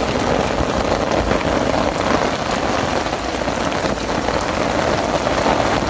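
Heavy rain pouring down, a dense steady patter of drops hitting surfaces.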